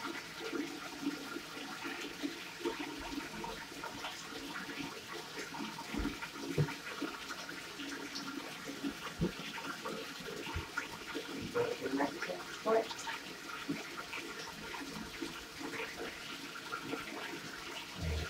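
Water running from a tap into a bathtub, a steady rush with scattered small splashes and knocks.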